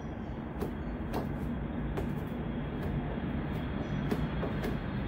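A steady low rumble, with a few short scrapes and clicks of a plastic spreader working polyester putty onto a car's quarter panel.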